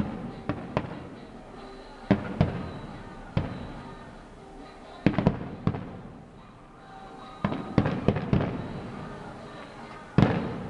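Aerial firework shells bursting: a series of sharp bangs, often two or three in quick succession, coming every second or two, each trailing off, the loudest about ten seconds in.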